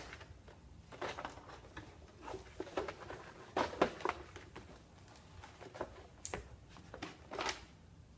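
Super Soaker packaging being handled and cut free: a scattered series of small clicks and rustles from plastic and cardboard.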